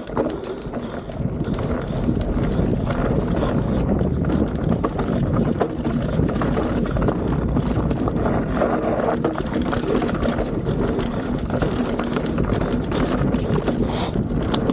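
Mountain bike rolling fast down a rocky dirt trail: tyres crunching over loose stones and a constant clatter of chain and frame over the bumps, with heavy wind rumble on the microphone.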